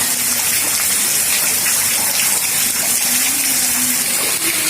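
Heavy rain pouring down, a steady loud hiss of water with no breaks.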